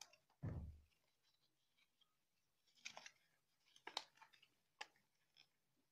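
Faint handling of a small cardboard inner-tube box being opened: a low thump about half a second in, then a few light scrapes and crinkles of cardboard.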